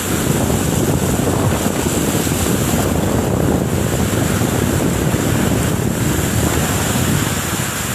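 Strong wind blowing hard with heavy rain, the gusts buffeting the microphone in a steady loud rumble.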